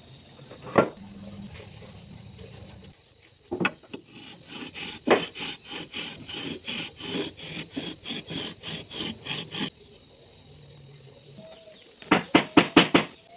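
Wood worked against a drum sander: repeated rubbing strokes, about three a second, over a steady high whine, with a few sharp knocks and a quick run of loud knocks near the end.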